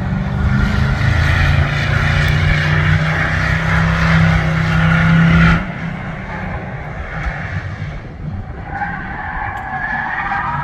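Race car engine running hard at a steady high rev on the track, with tyres squealing. About five and a half seconds in the sound cuts off abruptly to a quieter, more distant car still running and squealing its tyres.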